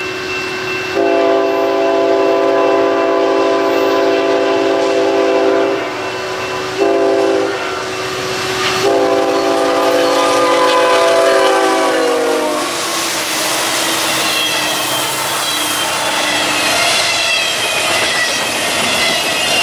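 Union Pacific freight locomotive's multi-note air horn sounding a long blast, a short blast and another long blast as the train approaches. The chord drops in pitch as the locomotive goes past, about 12 seconds in. The diesel locomotives and double-stack intermodal well cars then roll by at speed, with a steady rumble and clatter of wheels on the rails.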